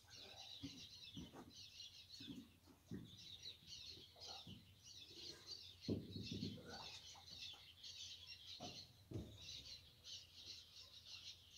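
Faint, continuous chirping of small birds, with a few dull thumps and knocks scattered through it, the loudest about six seconds in.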